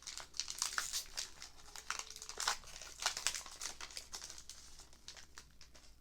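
Foil wrapper of a Pokémon booster pack crinkling as it is torn open and pulled off by hand, a dense run of crackles that thins out near the end.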